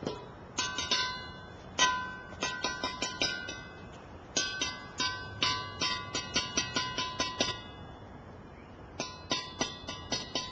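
A metal object struck again and again in quick bursts, each strike ringing on: a noise made to test a puppy's sensitivity to sound.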